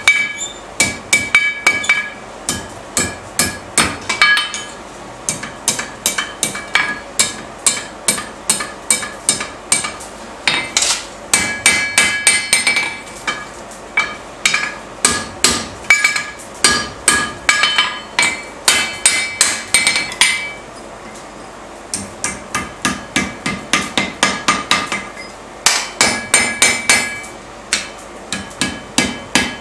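Hand hammer striking a red-hot steel strip on an anvil, bending it into a scroll, in runs of quick blows at about three a second with short pauses between runs. Each blow rings with a bright metallic ping.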